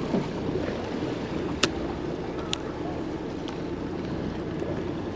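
Steady low rumble of a charter fishing boat's engine, with wind and water noise. Three short sharp clicks come at about one-second intervals near the middle.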